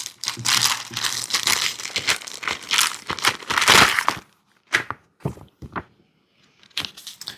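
Paper and plastic packaging crinkling and rustling as an instruction manual is pulled out and handled, dense for about four seconds, then a few short separate rustles.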